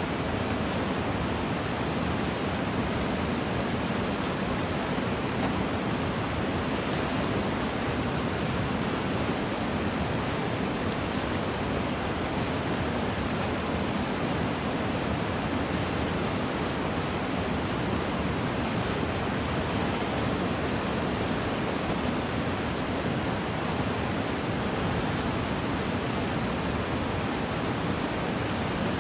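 Steady rush of flowing stream water, an even noise that does not change.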